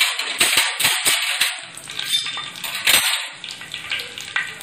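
Fenugreek seeds sizzling and crackling in hot oil in a steel pan, a thick run of sharp pops that thins out after about three seconds, as the seeds fry toward golden.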